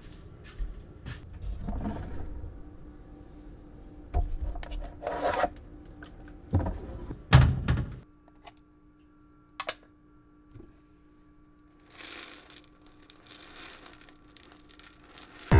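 A run of knocks and thunks from objects being handled, over a low rumble that stops about eight seconds in, then a short hiss around twelve seconds in.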